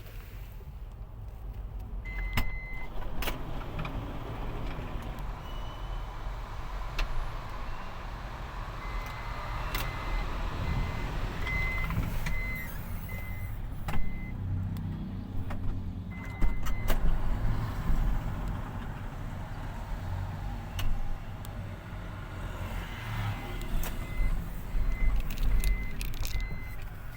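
Runs of short, high electronic beeps, evenly spaced and coming on and off, over a steady low hum, with scattered clicks and handling noise during smart key programming.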